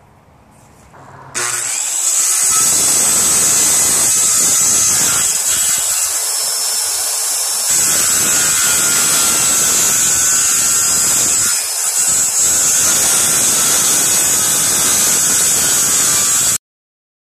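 Corded circular saw running and cutting along the edge of 3/8-inch plywood, a loud steady whine. It starts about a second in and cuts off suddenly near the end.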